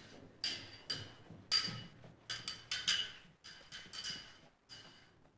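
Footsteps of two people going down a metal spiral staircase: sharp, uneven heel clicks, about two a second, each with a brief metallic ring.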